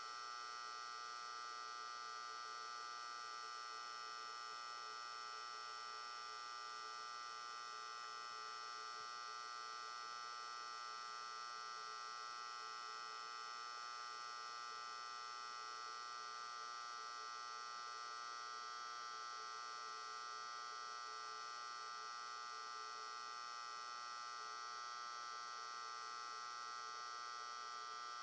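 Fluorescent light humming and buzzing steadily, a constant high-pitched electrical whine made of many tones that never changes.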